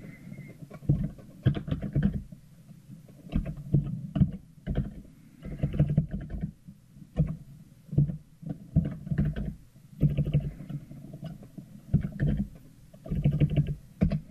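Computer keyboard keystrokes and mouse clicks, coming in irregular clusters of knocks every second or so.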